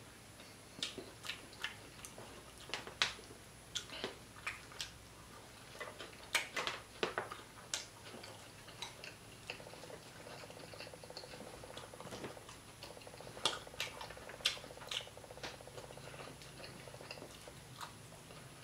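Close-miked eating sounds: scattered sharp mouth clicks and lip smacks with quiet chewing as fried croaker fish is picked off the bones and sucked from the fingers.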